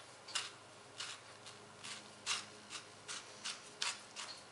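Stainless steel vegetable corer twisted down into a raw tomato, its small cutting blade scraping through the flesh in a series of short rasps, about two a second.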